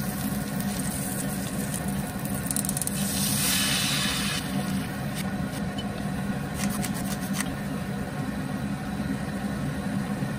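Food sizzling in a stainless steel frying pan over a steady low hum, with a louder hiss about three to four seconds in and a few light clicks after it.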